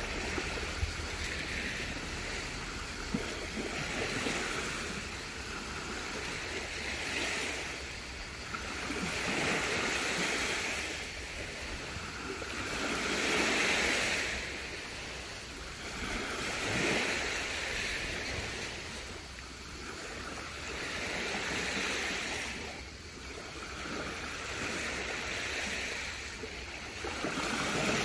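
Sea waves washing onto a beach, the surf swelling and ebbing about every three to four seconds.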